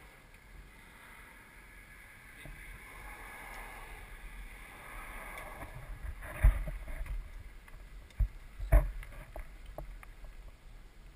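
Outdoor wind rumbling on the microphone, with sharp thuds about six and a half, eight and nine seconds in.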